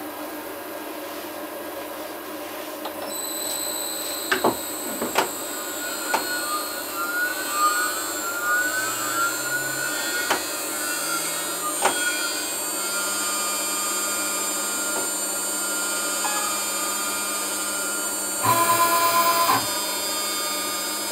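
CNC 6040 router at work: the spindle's high whine comes in about three seconds in and runs steadily over the machine's noise, while the stepper-driven axes make short rising tones as they move. There are a few sharp clicks, and a louder burst with a steady tone about two-thirds of the way through.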